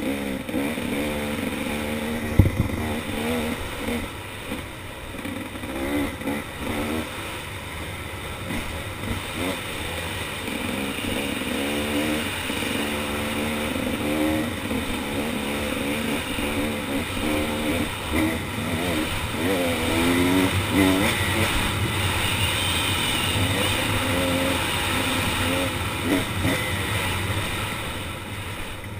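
KTM 300 XC two-stroke dirt bike engine under hard riding, its pitch rising and falling as the throttle is worked and gears change. A single sharp knock sounds about two and a half seconds in.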